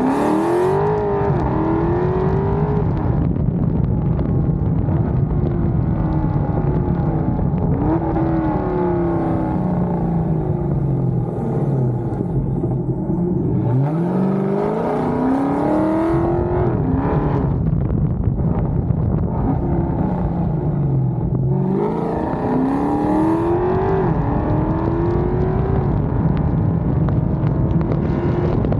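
Chrysler 300's 6.4-litre HEMI V8 breathing through long-tube headers and a Corsa exhaust while driving. Its pitch climbs several times under acceleration and falls away in between.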